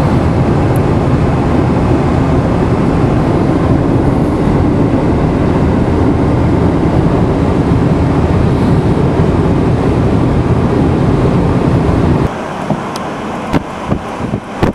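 Steady cabin noise inside a car driving at speed: tyre and engine rumble. About twelve seconds in it cuts abruptly to quieter, gusty wind buffeting the microphone.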